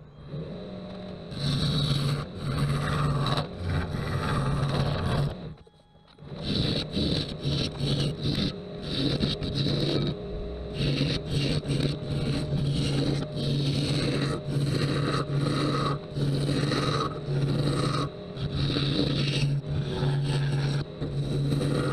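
Wood lathe spinning an ash blank while a turning tool scrapes and cuts the wood in repeated passes, over the lathe's low hum. The sound drops out briefly about six seconds in.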